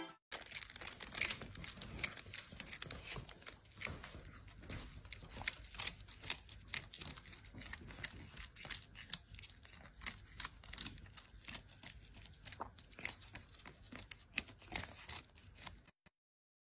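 A kitten chewing a crisp snack: an irregular run of crunching, crackling clicks that stops suddenly near the end.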